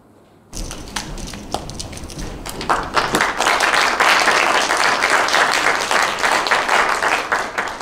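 Audience applause in a hall: a few scattered claps swell into full, continuous applause after a couple of seconds, then thin out near the end.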